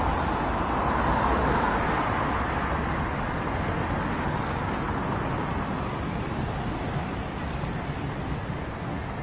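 A car passing close on the street, its tyre and engine noise swelling over the first couple of seconds and then fading away into a steady background of city traffic.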